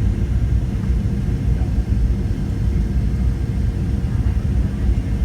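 Boeing 737-700 airliner's steady low rumble, with a faint steady hum above it.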